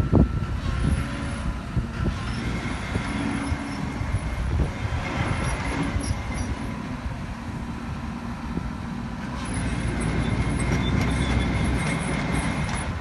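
Diesel engine of a SANY SY215C amphibious pontoon excavator running steadily, a little louder from about nine seconds in.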